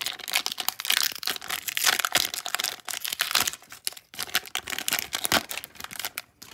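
A foil Pokémon booster pack wrapper being torn open and crinkled by hand: a dense, irregular crackling.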